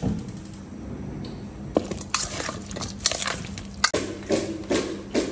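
A gas stove knob clicks as it is turned to light the burner under a pressure cooker. From about two seconds in come a run of short, irregular crunches and clicks.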